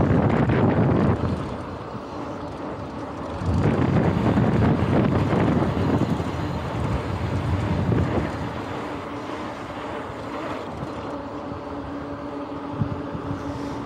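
Wind buffeting the microphone of a camera on an electric mountain bike ridden at about 26 mph, with tyre noise from the pavement and a faint steady hum underneath. The rush swells louder in the first second and again from about three to eight seconds in.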